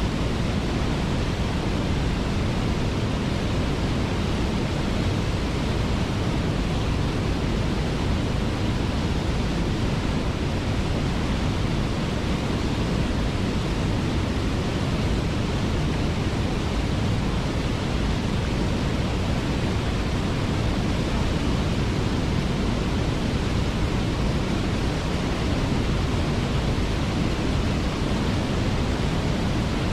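Waterfall pouring steadily: an even, unbroken rush of water, heaviest in the low end.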